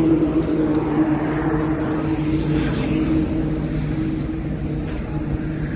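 A motor vehicle engine running with a steady drone over road traffic noise, easing off slightly toward the end.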